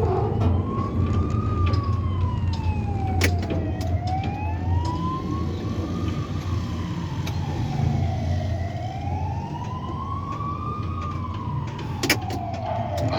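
A siren wailing, its pitch rising and falling slowly, about one full sweep every four to five seconds, over a steady low rumble. There are a couple of sharp clicks, one a few seconds in and one near the end.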